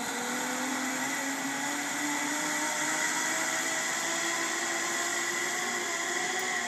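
Zip line trolley rolling down a steel cable: a steady whirring whine that rises slowly in pitch as the rider speeds away.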